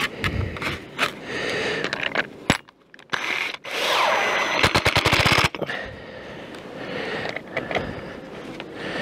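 Cordless impact driver driving a screw through a foam panel into a wooden hive box. The driver runs in short spurts, with a rapid clattering run of hammer blows for about a second in the middle.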